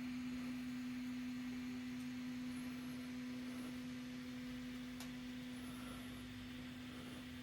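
Prusa Mini 3D printer's Z-axis stepper motor driving the X-carriage down its lead screw: a steady single-pitched hum.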